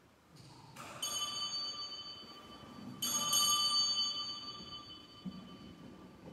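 A bell struck twice, about two seconds apart. Each strike rings on with several clear high tones that slowly fade.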